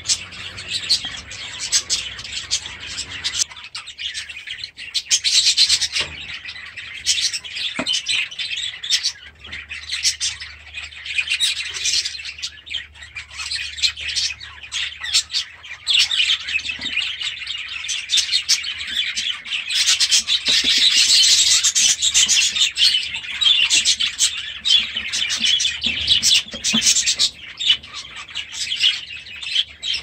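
A flock of small aviary birds chirping and twittering, many short calls overlapping without a break and busiest about two-thirds of the way through.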